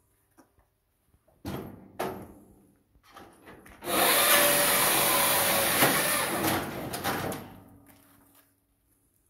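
Scheitfix 25 firewood circular saw cutting through a log: a loud, rough sawing noise of about three seconds starting about four seconds in, then trailing off. A couple of short wooden knocks come before it as the log is set in.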